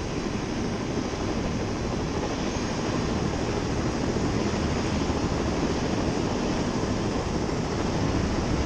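Steady rushing wind on a helmet-mounted camera microphone, high on an open tower.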